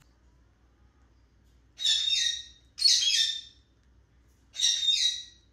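Monk parakeet giving three loud, harsh squawks, the first two back to back and the third about a second later.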